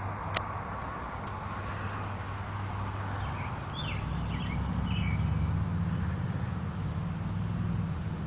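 Low rumble of a passing BNSF freight train, swelling about four seconds in, with a few birds chirping over it.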